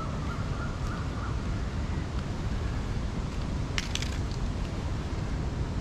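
Outdoor city-park ambience: a steady low rumble throughout, with a faint high tone in the first second and a quick cluster of sharp clicks about four seconds in.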